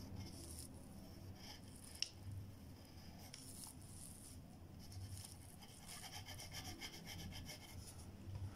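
Graphite pencil scratching across paper in short sketching strokes, faint, with a quick run of short strokes about six seconds in.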